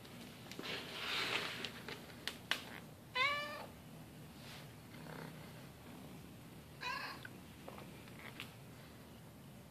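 Tabby kitten meowing twice, once about three seconds in and again about seven seconds in, with a low purr between. There is a rustle of fur brushing close to the microphone in the first couple of seconds.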